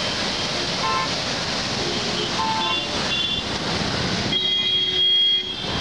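Steady rush of lake overflow water pouring through a stone channel, then road traffic with a vehicle horn sounding for about a second near the end.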